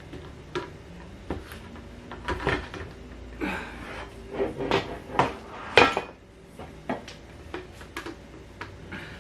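Irregular clinks and knocks of flat-pack chair parts and fittings being handled and fitted together during assembly, the loudest knock just before six seconds in.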